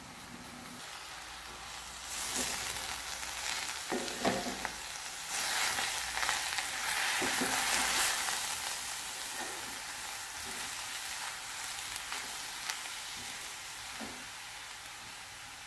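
Grated raw papaya thoran frying in coconut oil in a kadai as it is stirred with a wooden spatula: a steady sizzling hiss, louder for several seconds in the middle, with light scrapes and taps of the spatula against the pan.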